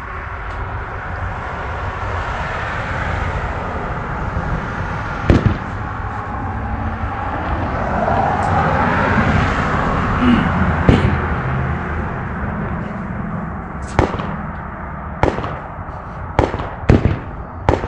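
Vehicle running with a steady noisy bed, under a string of sharp, loud gunshot cracks, a few seconds apart at first and then coming quicker near the end.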